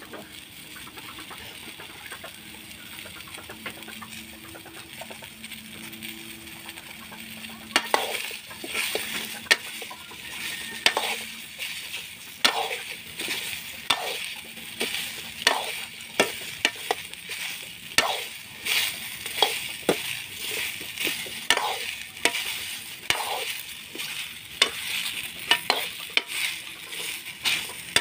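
Food sizzling in oil in a metal wok (kadai), with a metal ladle stirring it. From about eight seconds in the ladle scrapes and knocks against the pan in repeated strokes, roughly one a second.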